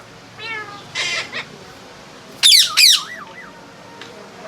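Pet parrot squawking in a series of short, harsh calls, the loudest a pair about two and a half seconds in, followed by a few softer wavering notes.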